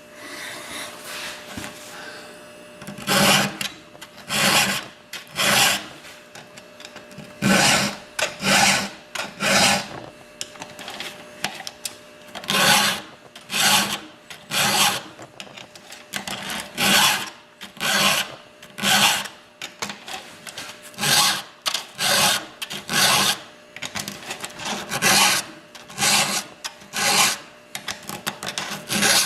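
A file rasping across a chainsaw chain's cutting teeth in even strokes about a second apart, mostly in sets of three, one tooth after another. The strokes begin about three seconds in.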